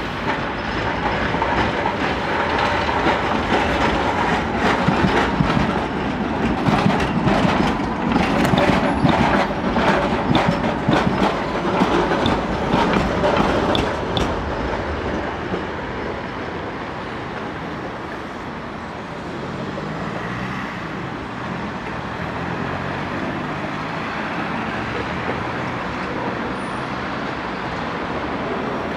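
Tram wheels clattering over rail joints and points: a dense run of clicks and knocks, loudest in the first half, that dies away about halfway through and leaves a steady street rumble.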